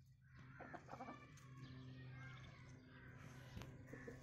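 Faint, soft clucking of aseel chickens as they feed, with a few short clicks.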